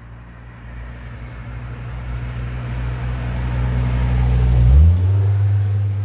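Road traffic: a motor vehicle's engine hum grows louder over several seconds, is loudest about five seconds in with a brief change in pitch, then holds.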